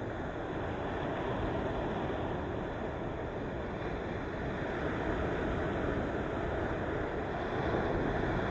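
Ocean surf: a steady rush of waves breaking and washing in, swelling gently in loudness, with a low rumble underneath.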